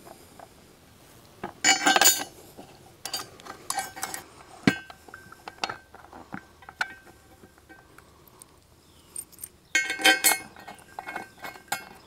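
Small steel hardware (bolts, washers and pipe-nipple spacers) clinking and ringing against a metal seat plate as it is handled and fitted. There are two bursts of clinks, about two seconds in and again about ten seconds in, with scattered lighter taps between.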